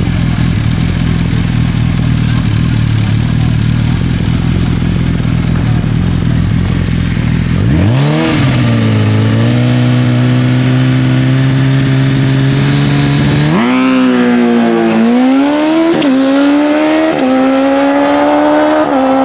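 Suzuki inline-four drag motorcycle idling at the starting line, then revving up and holding its revs steady for about five seconds. It then launches and accelerates hard, its pitch climbing and dropping sharply four times about a second apart as it shifts up through the gears.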